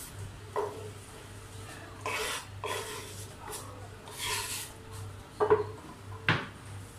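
Knife blade scraping chopped apple pieces across a wooden chopping board into a bowl, in several short scrapes, followed by two sharper knocks near the end.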